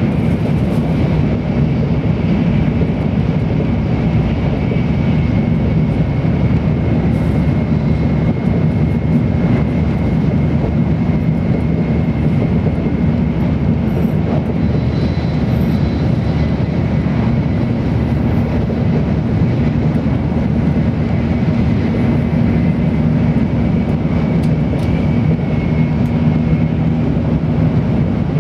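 Steady running noise inside a Tokaido Shinkansen N700-series passenger car at speed: a constant low rumble from the wheels, rails and rushing air, with a faint steady high whine above it.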